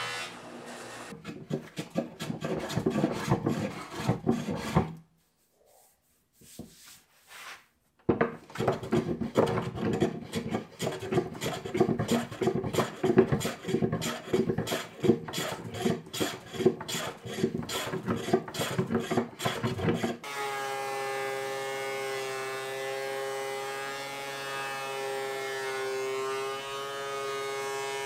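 A hand tool worked across wood in quick back-and-forth rasping strokes, with a short pause before it. About twenty seconds in, a woodworking machine's motor takes over with a steady, even hum.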